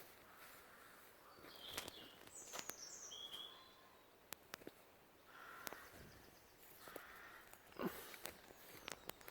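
Faint forest ambience with a few short, high-pitched bird chirps between about one and a half and three and a half seconds in, and scattered sharp clicks and snaps.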